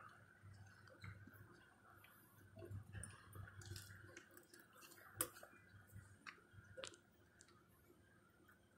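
Near silence: faint outdoor background with a few soft clicks, the sharpest about five seconds in.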